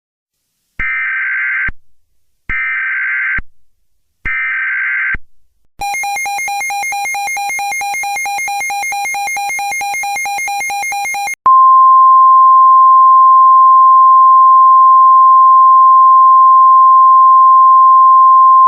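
Emergency Alert System alert tones: three short screeching bursts of digital header data, then a rapidly pulsing buzzy electronic tone for about five seconds, then a loud, steady single-pitch alarm tone that holds to the end. Together they herald a new alert message, here an emergency action termination.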